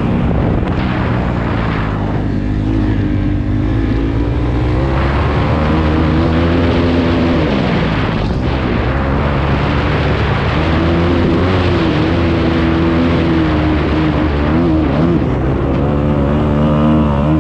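Dirt bike engine running under load as the bike is ridden around a motocross track, its pitch rising and falling with the throttle, with a sharp drop and recovery about eight seconds in.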